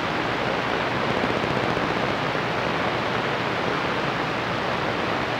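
CB radio receiving on channel 22 with the squelch open: a steady hiss of band static from its speaker while the operator listens for skip stations.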